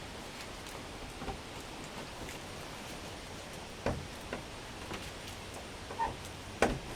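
Quiet room hiss with a few faint knocks and clicks in the second half: handling noise from someone reaching to plug a power cord into a wall outlet. The saw is not running.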